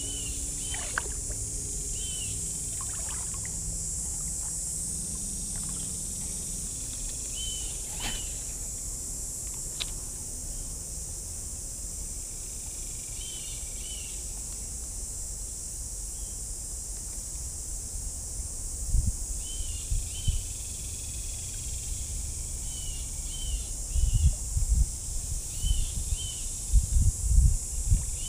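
Steady high-pitched drone of insects. Short double chirps recur every few seconds. Low rumbling thuds and water sloshing come in bunches in the last third.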